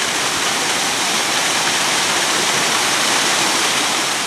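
Small waterfall splashing down a rocky, overgrown slope: a steady rush of falling water that starts to fade near the end.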